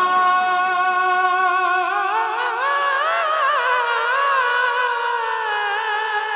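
A naat reciter's voice holding one long sung note with a wavering vibrato, the pitch climbing about two seconds in and sliding gently down toward the end.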